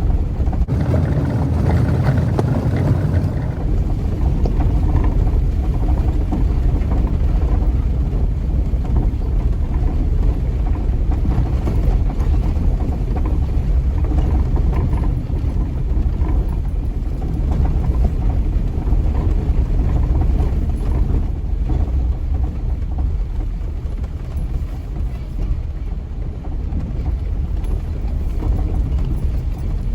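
Jeep driving up a dirt off-road trail: a steady low rumble of engine and tyres on the dirt track.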